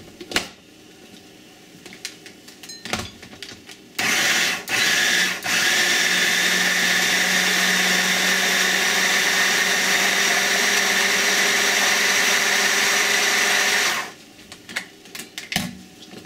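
Electric hand blender's mini-chopper attachment whirring as it blends shrimp, flour, egg and green onion into a paste. It starts about four seconds in with two short stop-starts, runs steadily for about ten seconds and cuts off abruptly, with plastic clicks of the lid and bowl before and after.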